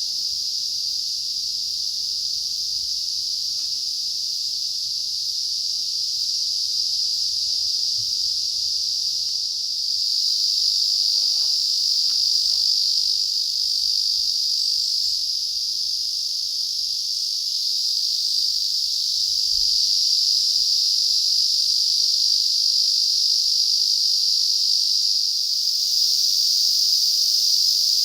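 Steady, high-pitched chorus of summer insects, continuous and unbroken, growing a little louder about ten seconds in and again near the end.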